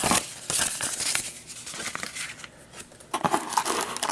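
Rustling and crinkling of packaging as a small white cardboard box is opened and rummaged through by hand, loudest in the first second and again about three seconds in.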